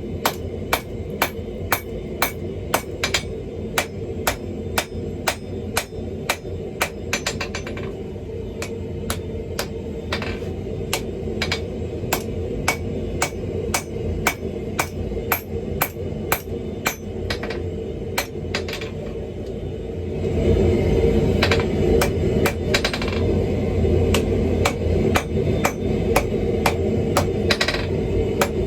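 Steady hammer blows on hot steel on an anvil, about two to three strikes a second, as a steel ball bearing is forged out. Under them runs a steady low rushing noise that grows louder about two-thirds of the way through.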